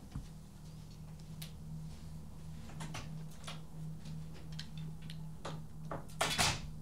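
Quiet room tone with a steady low hum, scattered light clicks and taps, and a brief louder rustling clatter about six seconds in.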